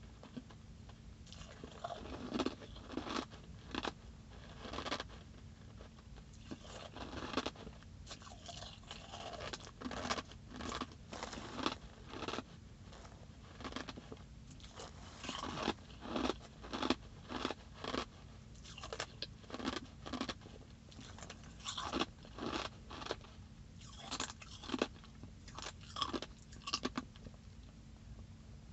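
Ice being chewed close to the microphone: a long run of sharp, irregular crunches.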